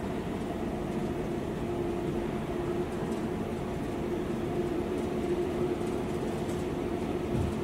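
Boeing 787-9's GEnx-1B turbofan engines running steadily after a simultaneous start, heard from across the apron as an even rumble with a steady low hum.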